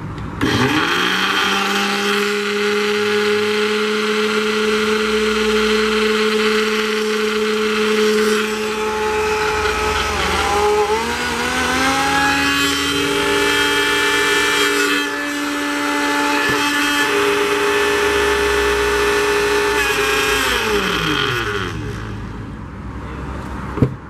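Arno kitchen blender's motor running with an empty jar on a test run after repair. It spins up at the start and runs steadily, shifts up to a higher speed about ten seconds in, then winds down and stops near the end.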